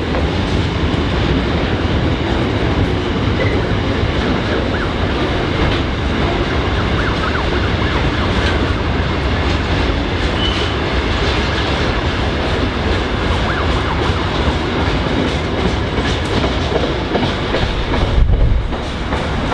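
Freight train wagons rolling past on the track, a steady loud rumble of steel wheels on rail. Near the end it swells briefly, then drops away as the last wagon passes.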